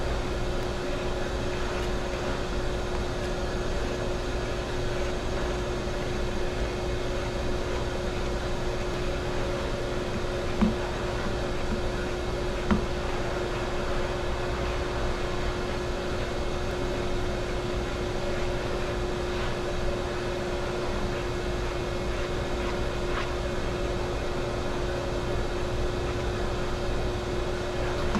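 Steady electric motor hum with a constant low tone. Two faint clicks come about eleven and thirteen seconds in.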